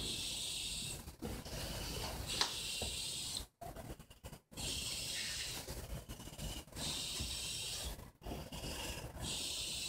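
Rustling and rubbing of old paper envelopes being handled, in hissy stretches of a second or two with short sudden gaps between them.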